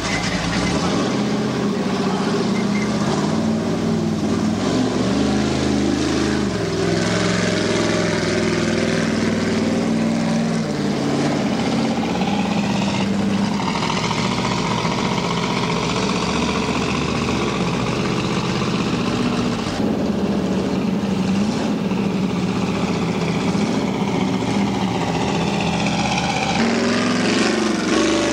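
V8 engine of a Ford Ranger mud truck with open headers running loud, revving up and down as the truck drives through the mud pit.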